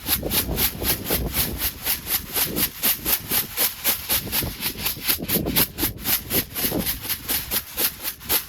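Freshly roasted coffee beans rattling against each other and their cooling tray in a steady rhythm of about four to five strokes a second, as they are worked back and forth to cool straight out of the roaster.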